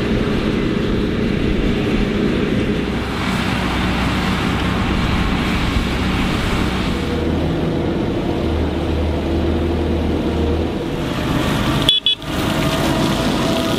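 Large Fendt tractor diesel engines running steadily under load as they pull rotary spaders through the soil. About twelve seconds in the sound breaks off sharply, then a Fendt 720 towing a Tebbe manure spreader drives by with its engine running.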